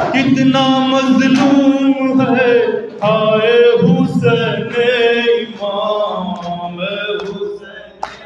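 Men's voices chanting a Shia mourning lament in long drawn-out held notes. It is loud for the first five or six seconds and then fades.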